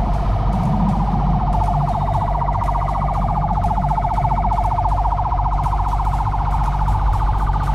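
A siren with a fast warble runs continuously, its pitch sinking slowly and then climbing back, over the steady low hum of a motorcycle on the move.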